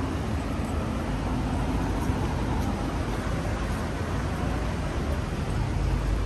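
Steady traffic noise on a busy city street, with no single vehicle standing out.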